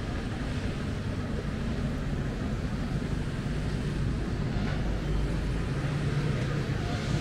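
City street traffic: a motor vehicle engine running with a steady low hum over a constant wash of traffic noise.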